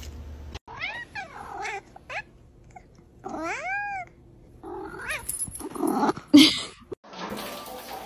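Black cat meowing and yowling repeatedly, a series of drawn-out calls that rise and fall in pitch, the loudest a little after six seconds in.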